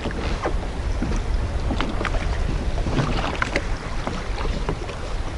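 Wind buffeting the microphone and water slapping against a drifting jet ski, with scattered light clicks and knocks.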